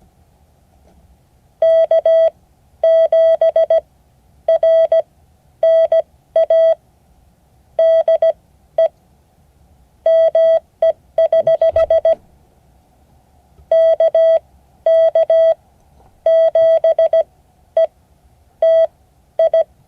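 Morse code sent as a single steady beep tone, keyed in dots and dashes grouped into characters: a ham radio over, the reply sending K7RNA from KK7ETI with a break at the end.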